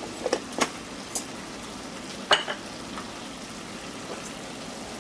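Mutton liver frying in oil in a pan with spice powders just added, a steady sizzle, with a few sharp metal clinks of the stirring spoon, mostly in the first second and twice more just past two seconds.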